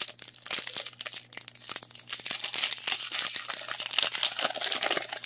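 Foil wrapper of a Pokémon trading card booster pack crinkling and tearing as it is pulled open by hand, a steady run of crackles.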